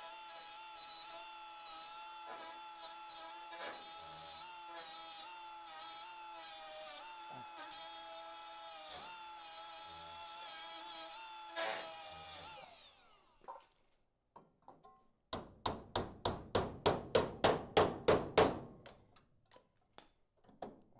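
Right-angle die grinder with a small cutoff wheel notching rusty sheet steel: a steady motor whine with rasping bursts each time the wheel bites, winding down about twelve seconds in. A few seconds later comes a run of about a dozen quick, even knocks.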